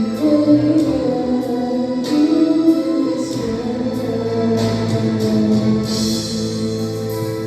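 Sholawat, an Islamic devotional song, sung with instrumental accompaniment: held sung notes over a steady backing, with a few sharp percussive strikes.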